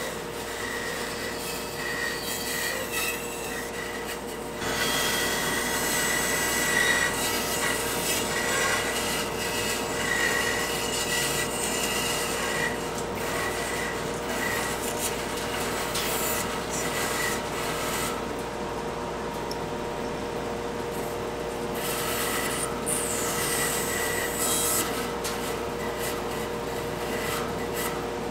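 Band saw running, its blade cutting a curve through a thick spalted-wood board: a steady machine hum under a scratchy cutting noise that grows louder about five seconds in and eases for a few seconds past the middle.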